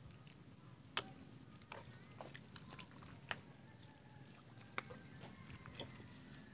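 Faint, scattered wet clicks and squelches of hands and feet working in the soft mud of a flooded rice paddy as rice seedlings are transplanted by hand. A few sharper clicks stand out, about a second in, near the middle and about five seconds in, over a low steady hum.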